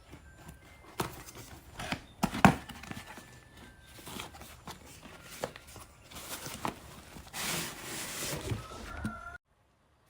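Nebulizer packaging being opened and handled: scattered knocks and rubbing, a sharp thump about two and a half seconds in, and a stretch of rustling and scraping near the end before the sound cuts off abruptly.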